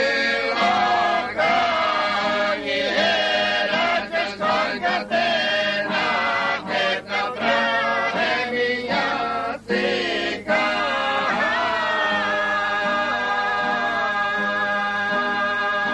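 A group of voices singing a slow, chant-like song together, the melody wavering and sliding between notes, then settling into one long held note in the last few seconds.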